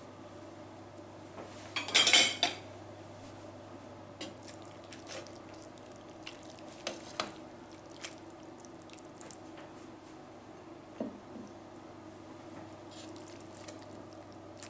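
A metal spoon scraping and clinking in a coated baking pan and on a ceramic plate while spooning out sauerkraut and pork. A brief loud clatter about two seconds in, then scattered light clinks and scrapes.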